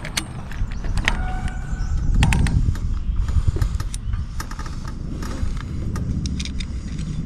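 Wind buffeting the microphone as a steady low rumble, with scattered clicks and metallic taps from antenna parts and hardware being handled, and a short squeak about a second in.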